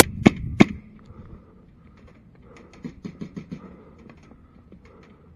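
Airsoft pistol shots: three loud sharp pops in quick succession right at the start, then a quieter quick string of about six shots about halfway through, with a few faint scattered clicks.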